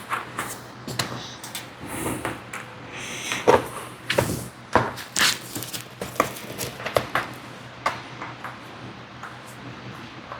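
Irregular clicks, taps and knocks of hard parts being handled, with the loudest knocks between about three and a half and five and a half seconds in, over a steady low hum.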